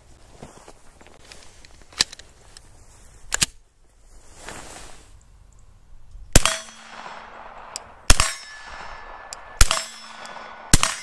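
Four suppressed 9mm pistol shots from a Glock 17 fitted with a Gemtech Blackside suppressor, firing 115-grain ammunition, about one and a half seconds apart. Each is followed by the ringing clang of a steel target being hit. Two lighter clicks come a few seconds before the first shot.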